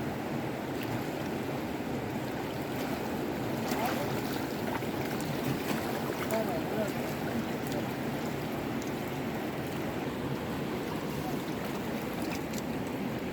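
Steady rushing of flowing floodwater, with a few faint clicks or splashes midway.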